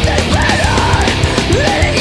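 Loud heavy rock music, in the metal style, with dense, fast drum hits under a lead line that bends up and down in pitch.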